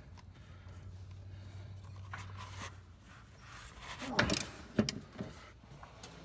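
Hand ratchet and socket clinking against the bolt as they are fitted on, with a few sharp metal clicks about four and five seconds in. A low steady hum runs underneath for the first three seconds.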